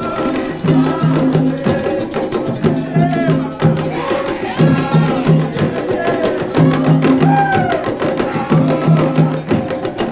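Music with dense, fast hand percussion and a low pitched figure repeated in short groups of notes, with voices singing over it.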